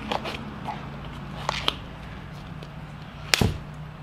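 A too-small nitrile glove being stretched and worked onto a hand: scattered rubbery crackles and clicks, with one sharp snap about three and a half seconds in, over a low steady hum.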